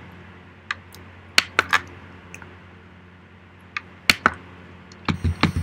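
Typing on a computer keyboard: irregular key clicks, a few scattered at first, then a quicker run of keystrokes near the end.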